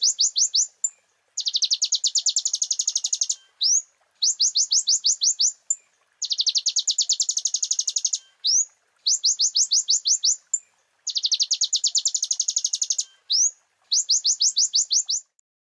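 Kolibri ninja (konin) singing: bursts of fast, high trilled notes, each lasting one to two seconds, alternating with short single rising notes, repeated over and over.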